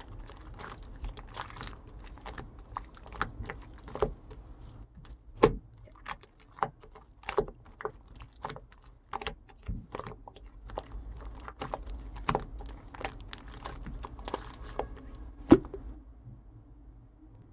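Pink transparent slime being squished and pressed by hand, giving irregular sharp clicks and pops as air pockets burst, the loudest about fifteen seconds in. The popping stops shortly before the end.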